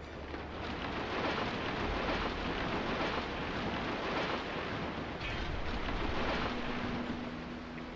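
Storm noise: a heavy rush of wind and rain, with wind on the microphone, swelling about a second in and holding. A faint steady hum comes in near the end.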